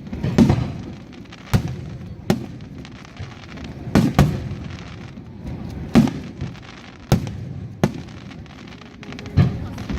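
Aerial fireworks shells bursting: about nine sharp bangs at uneven intervals, two of them close together about four seconds in, several trailing off in a low rumbling echo.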